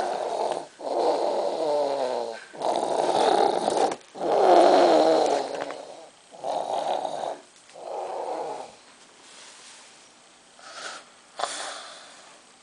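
Snoring: about six loud snores in a row, each about a second long, followed after about nine seconds by quieter breathing. Two short sharp sounds come near the end.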